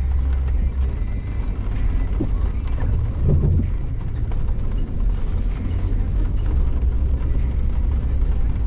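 Off-road vehicle driving over a dirt track: a steady low rumble with rattling.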